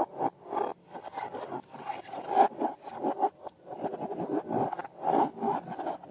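Slime and balloon rubber worked by hand, with quick, uneven squishing and rubbing strokes, several a second.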